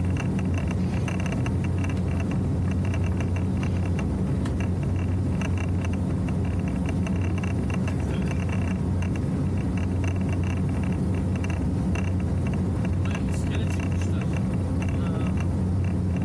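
Motorboat under way at cruising speed: the engine runs with a steady low drone, mixed with water noise from the hull and a fast, fine rattle.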